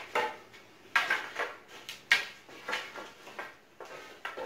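Loose wooden bed slats knocking and clattering against each other as the bundle is handled, a string of sharp wooden knocks.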